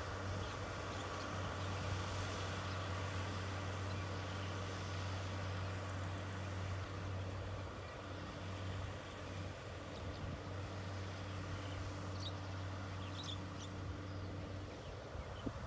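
Tractor engine running steadily with a constant low hum while it works a rear-mounted tillage implement through a weedy field.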